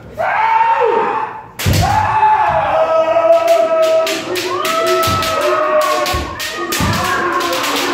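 Kendo practice: several fencers shouting kiai, with sharp cracks of bamboo shinai strikes and the deep thuds of stamping feet on a wooden dojo floor. The strikes start coming thick and fast about a second and a half in.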